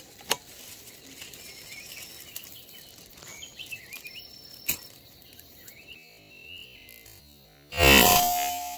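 Small birds chirping faintly, then near the end a single loud rifle shot from the scoped rifle aimed at a perched bird, dying away over about a second.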